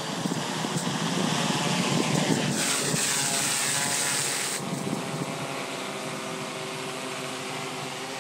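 Freefly ALTA Pro multirotor flying on seven of its motors, its motors and propellers humming with several pitches that shift for the first few seconds and then settle into a steadier drone. A loud rushing hiss over it cuts off suddenly about four and a half seconds in.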